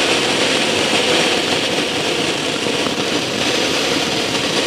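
Beer-can-shaped fountain firecracker burning with a loud, steady hissing rush and no bangs.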